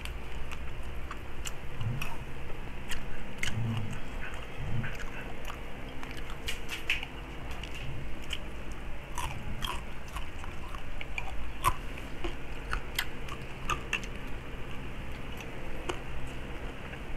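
Close-up chewing and crunching of crispy pata (deep-fried pork leg) crackling, with many short sharp crackles scattered irregularly. A steady low hum sits underneath.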